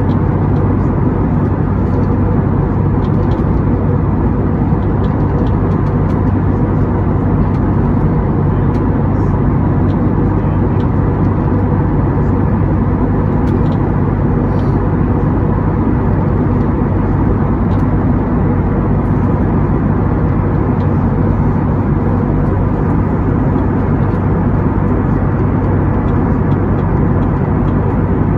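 Airbus A321neo cabin noise in flight: a steady drone of engines and airflow heard from a window seat, with a low hum underneath.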